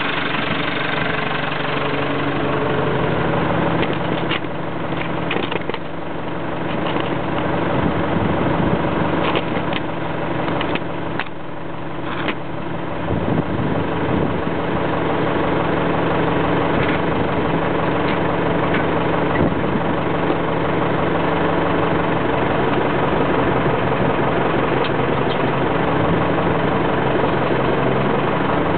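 JCB 215E backhoe's diesel engine running steadily as it works, with a few sharp knocks and clanks in the first half.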